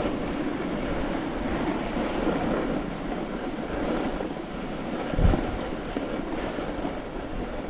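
Steady scraping rumble of a snowboard sliding over packed snow, with one low thump about five seconds in.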